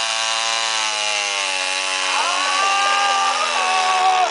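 Two-stroke chainsaw engine running steadily, its note wavering slightly, with a higher whine joining about halfway through.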